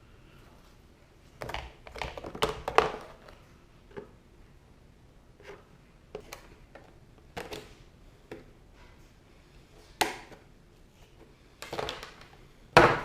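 Irregular knocks, taps and clicks of hard plastic bike parts being handled and pried loose, a quick cluster a second or two in and the loudest knock near the end.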